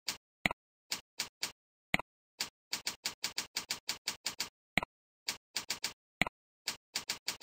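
Computer keyboard keys typed in short quick runs of clicks with brief pauses between them, and a few sharper single clicks between the runs as each new form field is clicked into.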